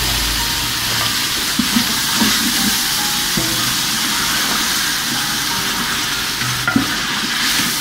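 Chicken pieces and spice masala sizzling steadily in hot oil in a large aluminium pot, just moistened with garlic water, while a wooden spatula stirs them.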